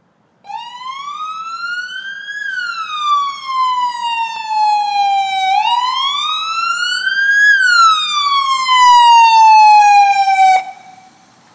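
Police car siren on a 2010 Dodge Charger, driven by a Rontan IS1200 siren amplifier, sounding a wail tone. It rises and falls slowly through two full cycles, grows louder as the car comes closer, and cuts off suddenly near the end.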